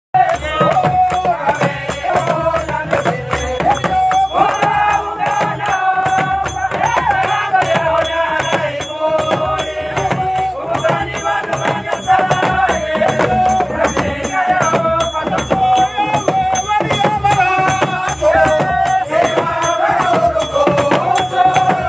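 A group of women singing a worship song, one leading into a microphone, with hand clapping and rattling percussion keeping a steady beat.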